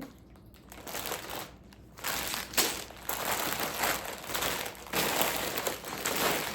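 Plastic Lego parts bags crinkling and rustling as they are handled and shuffled, in uneven bursts with short pauses.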